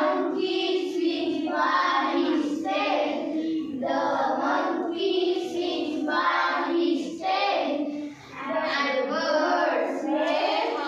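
A group of young girls singing an English action poem together in unison.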